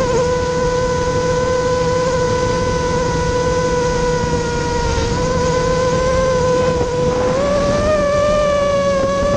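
ImmersionRC Vortex 250 Pro racing quadcopter in flight, its brushless motors and propellers giving a steady high whine that rises slightly in pitch about seven seconds in as the throttle comes up. The whine is heard from the onboard camera, over a rumble of wind on the microphone.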